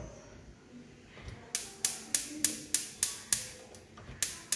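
Gas hob burner's spark igniter clicking steadily, about three sharp clicks a second, starting about a second and a half in, with a short break near the end before the clicks resume.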